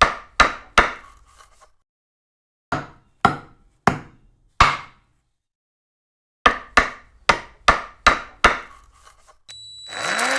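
Hammer blows on timber, a regular run of strikes about two or three a second, coming in three bursts with sudden silences between them. Near the end a motor starts up, its pitch rising and then holding steady.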